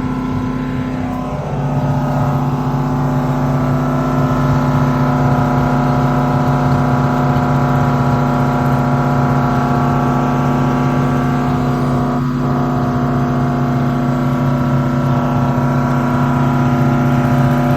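Generator engine running steadily at constant speed. Its note grows louder about a second and a half in and then holds.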